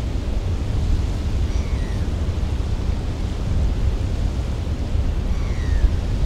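Wind buffeting the microphone: a steady low rumble. Two faint short falling whistles come through, about one and a half and five and a half seconds in.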